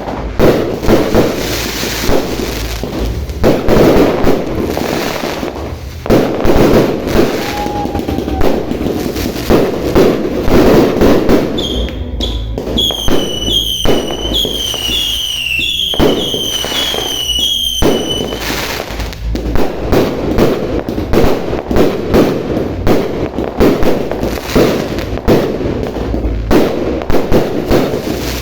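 Fireworks and firecrackers going off in rapid, dense succession, a near-continuous run of loud bangs and crackles. Midway, a high warbling whistle dips and rises over and over for about six seconds before cutting off.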